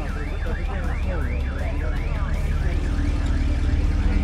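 A car alarm sounding: a siren tone sweeping rapidly down and up about three times a second, which stops about two seconds in. Under it is a low rumble that grows steadily louder.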